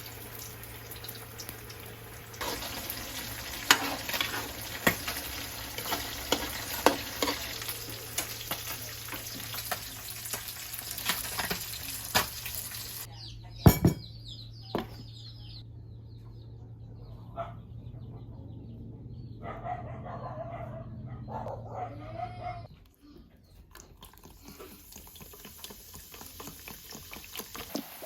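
Food sizzling in a frying pan while a utensil clicks and scrapes against it. About halfway through the sizzle cuts off, and quieter sounds follow: a sharp knock and a few short chirps. The level drops again near the end.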